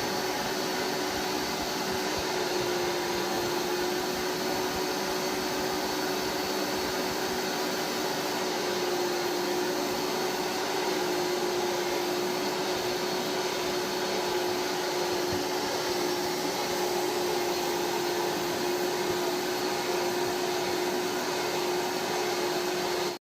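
A small electric motor running steadily, with an airy rush and a constant hum. It cuts off abruptly right at the end.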